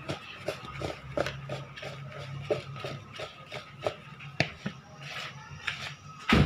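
A metal spoon stirring marinated paneer cubes in a bowl, with repeated light clicks and scrapes of the spoon against the bowl about three times a second and one louder knock near the end.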